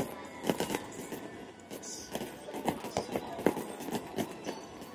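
Aerial fireworks exploding overhead: a rapid, irregular run of bangs and crackles, several every second.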